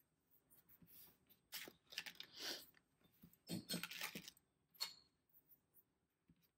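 Faint handling sounds of nail stamping tools on a desk: a few short scrapes and rubs of a scraper card, a silicone stamper and a metal stamping plate, then a light click just before the end.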